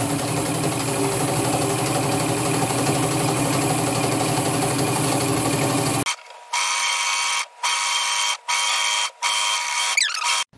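Electric sewing machine stitching steadily through thick layers of shirt fabric. About six seconds in it changes to a thinner, higher sound in short runs with brief stops.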